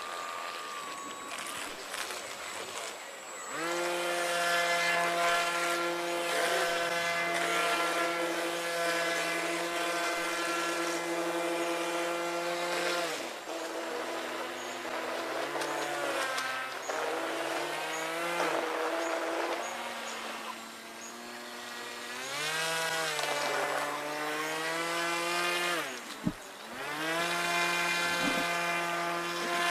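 Small engine of a radio-controlled model boat running at a steady high pitch, then dropping back and speeding up again several times as the throttle changes. A single sharp click sounds near the end.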